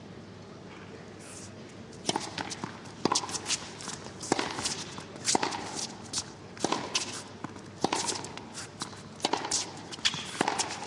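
Tennis rally: the ball is struck by rackets and bounces on the court in a run of sharp pops, about one a second with some pairs close together, starting about two seconds in. A quiet stadium crowd hum lies underneath.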